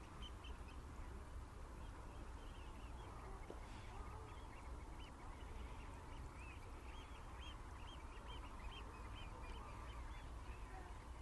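A flock of black-headed gulls calling: many short, repeated calls that come thicker from about halfway on, over a steady low rumble.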